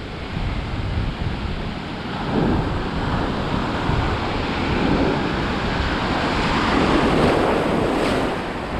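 Ocean waves washing and breaking around a wader in the surf, a steady rushing with swells of louder wash about two seconds in and again near the end. Wind buffets the microphone with a low rumble.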